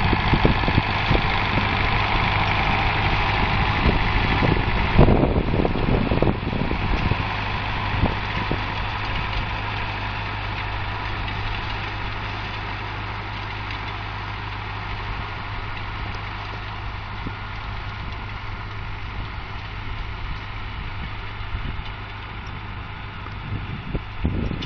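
David Brown 996 tractor's four-cylinder diesel engine running steadily under load while pulling a maize seed drill. It is loud at first, with a few sharp knocks about five seconds in, then slowly fades as the tractor moves away.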